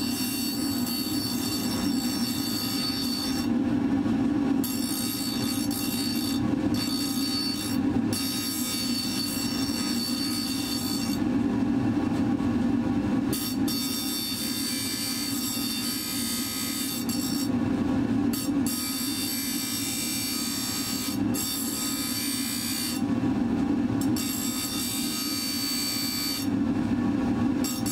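Bench grinder running with a steady hum while a steel blade blank is held against its spinning wheel, giving a high grinding whine. The whine breaks off about six times, for a fraction of a second up to two seconds, as the steel comes off the wheel, leaving only the motor's hum.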